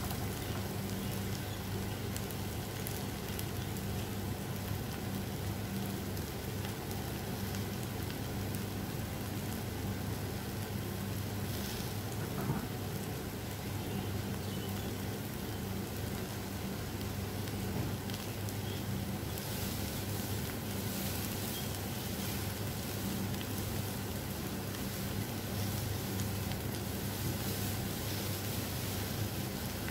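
Sliced eggplant and onion sizzling steadily as they fry in a pan, with a steady low hum underneath.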